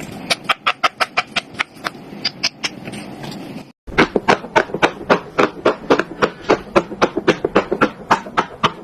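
Silicone pop-it fidget toy having its bubbles pressed one after another in quick succession, a rapid run of sharp pops at about four to five a second. The popping breaks off briefly about four seconds in, then goes on louder.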